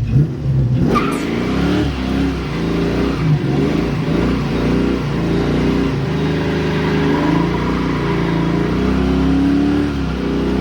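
1989 Ford Mustang Fox-body engine accelerating hard, its revs rising and falling repeatedly, with a short sharp sound about a second in.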